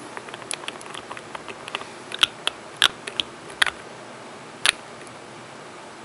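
Small handling clicks and taps from long acrylic nails, a nail polish bottle's brush cap and a plastic swatch stick: a patter of faint ticks, then a handful of sharper clicks between about two and five seconds in.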